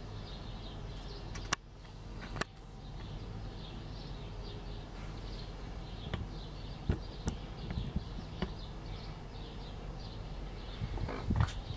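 Chicks peeping: many short, high peeps repeating throughout, with a few sharp clicks early on and a cluster of low knocks near the end.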